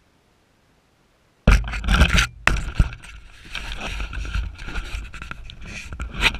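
Handling noise on the drone's GoPro: leaves and branches scraping and rustling against the camera as the crashed quadcopter is pulled out of a shrub and carried, starting suddenly about a second and a half in. No motor or propeller sound.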